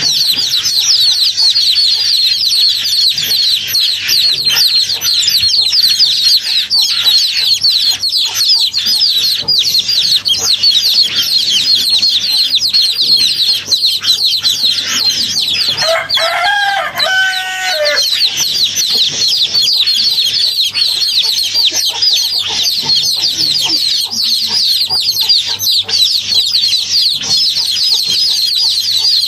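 A flock of birds chirping continuously in a dense chorus, with one longer, lower call lasting about two seconds just past the middle.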